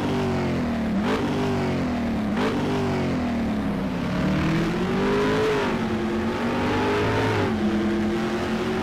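Car engine accelerating through the gears: the pitch climbs, drops abruptly at each shift about a second in and again near two and a half seconds, rises slowly, then falls back.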